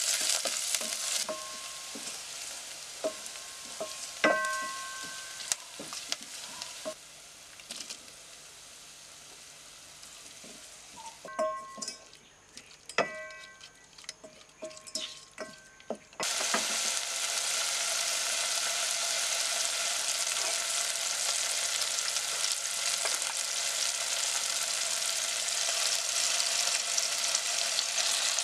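Onions and whole spices frying in oil in a steel pot, stirred with a spatula that knocks against the pot and sets it ringing briefly. About sixteen seconds in a loud, steady sizzle starts suddenly as marinated chicken pieces go into the hot oil.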